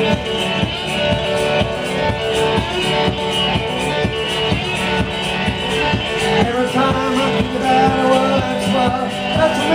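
Live blues song: guitar played over a steady beat, with singing.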